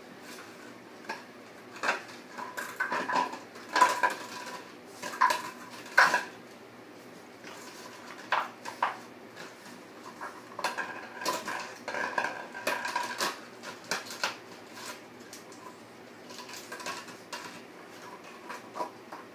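Empty plastic water bottle clattering and crackling on a tile floor as a boxer puppy paws and mouths it, in irregular bursts of knocks that thin out in the last few seconds.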